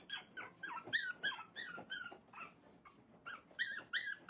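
Dog yelping in a rapid run of short, high-pitched calls, about three a second, with a short lull a little past the middle before the yelps pick up again.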